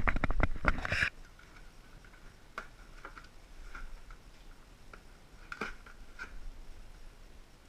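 Box packaging being handled during an unboxing: a loud flurry of rapid clicks and rustles for about the first second, then occasional faint clicks and short rustles.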